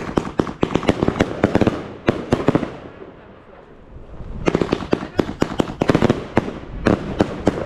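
Fireworks going off in rapid runs of sharp bangs, several a second: a dense burst for the first three seconds, a lull of about a second and a half, then another run of bangs.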